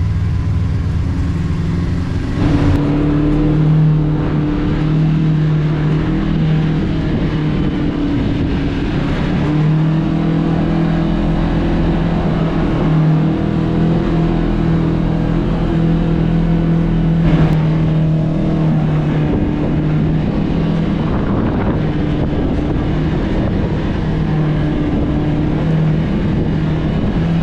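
Kawasaki KRX 1000 side-by-side's parallel-twin engine running at a steady, low trail pace, its pitch wavering only slightly.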